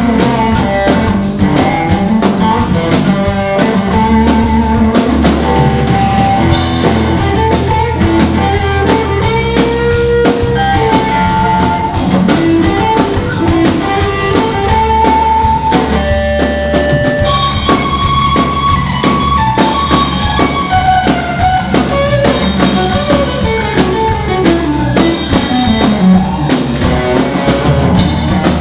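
Live rock band playing: electric guitar, bass guitar and drum kit together, with steady drum beats under sustained guitar notes.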